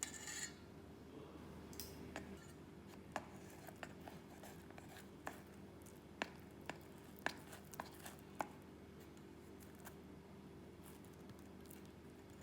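Light kitchen handling: a few sharp, separate taps and clicks of utensils or a knife on a board, over a steady low hum.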